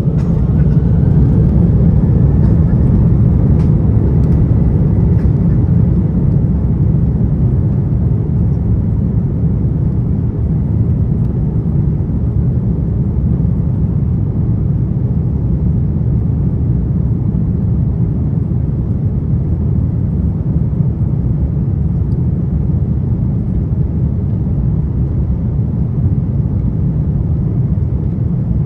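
Airbus A330 jet engines heard inside the cabin, spooling up: a rising whine over the first few seconds as the rumble grows louder, then a steady loud roar at high thrust.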